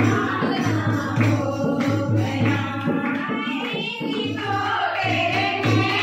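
Women singing a Krishna bhajan together to a steady hand-drum beat of about two to three strokes a second. The drum drops out briefly about four seconds in, then comes back.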